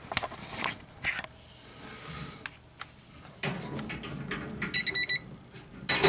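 Digital multimeter's continuity beeper giving a short, stuttering beep about five seconds in as the test probes make and break contact on a terminal, the beep signalling an unbroken circuit. Before it, clicks and rustling of the probe leads being handled.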